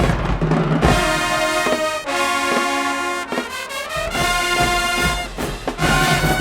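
A high school marching band playing, with loud brass chords over drum strokes and a brass glide rising in pitch about three seconds in.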